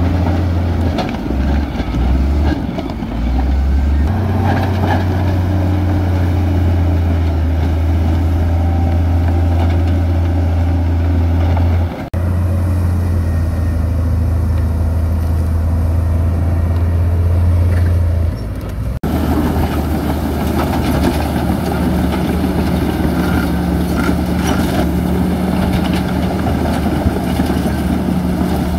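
Diesel engine of a heavy construction machine running steadily at a low pitch, with abrupt breaks in the sound about twelve and nineteen seconds in.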